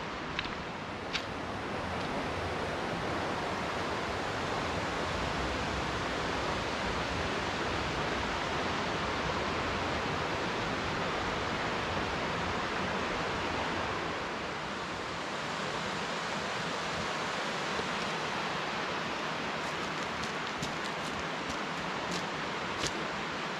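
Steady rushing of flowing water from the Brudour stream at its resurgence cave, an even hiss with no break. A few light crunching steps on loose stones near the end.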